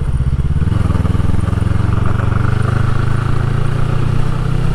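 Suzuki GSR250F's 248 cc parallel-twin engine running steadily at low revs while the bike is ridden slowly. The pitch steps up slightly a little under a second in, then holds level.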